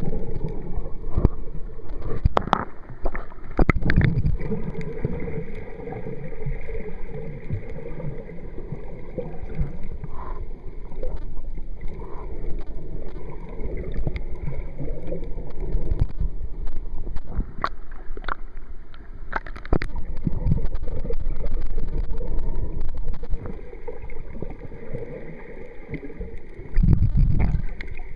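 Muffled underwater noise picked up by a submerged camera: a steady low rush of water with sharp clicks now and then, bunched in the first few seconds and again past the middle, and a louder low rumble near the end.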